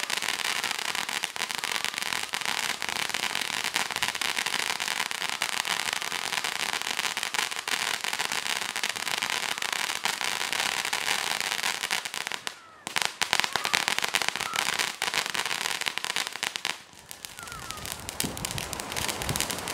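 Utopia ground fountain firework spraying sparks with a dense, continuous crackle and hiss. It breaks off briefly twice in the second half, then dies down near the end.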